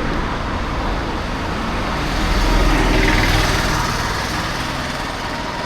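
Road noise heard while riding: a steady rush of traffic and wind with a low rumble, swelling louder a couple of seconds in and easing off again.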